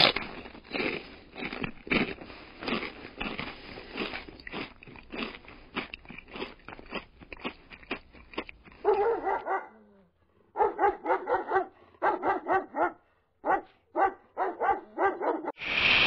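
Cereal being chewed with crunching, irregular crunches coming several a second for about nine seconds. Then a dog barks in quick runs, about a dozen barks in all. A noisy rush starts just before the end.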